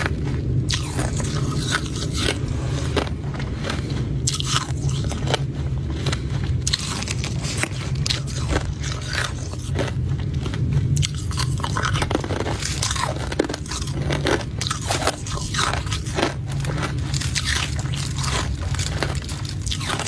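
Hard ice cubes being bitten and chewed close to the microphone: a continuous, irregular run of sharp crunches and cracks, over a steady low hum.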